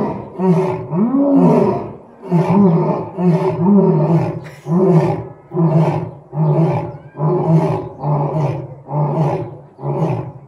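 Two lions roaring together in one bout: a long run of deep, short roars repeating about every three-quarters of a second, the later ones shorter.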